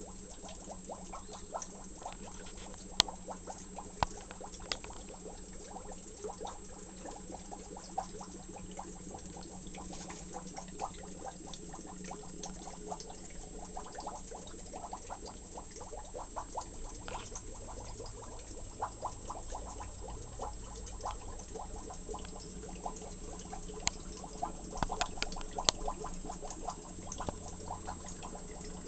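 Aquarium water bubbling and trickling over a steady low hum, with a constant fine crackle of small ticks. A few sharper clicks stand out about three and four seconds in and again in a cluster near the end.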